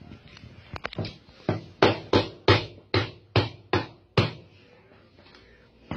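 A run of about eight sharp knocks, roughly three a second and slightly uneven, starting about a second in and stopping a little after four seconds, as the hard pieces of a broken piggy bank are knocked.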